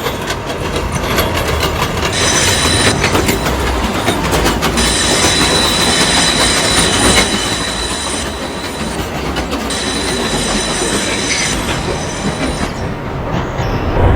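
R142A subway train running between stations: wheels clatter over the rail joints, and high steady squealing tones carry through most of the run.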